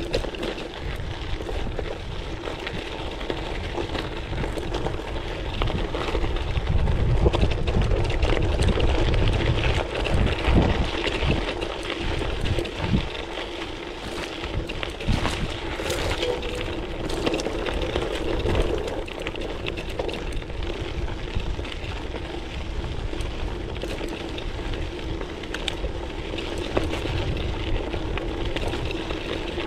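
Gravel-bike tyres rolling and crunching over a loose gravel and dirt track, with many small rattles and knocks from stones and the bike. Wind rumbles on the microphone, strongest about a quarter of the way in.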